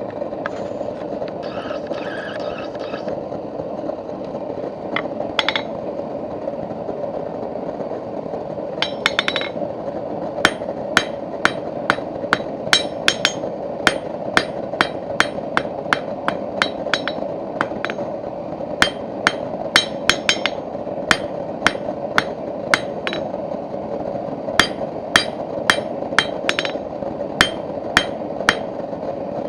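Hand hammer blows ringing on steel at an anvil, in runs of one to two strikes a second with short pauses, over the steady roar of a forge.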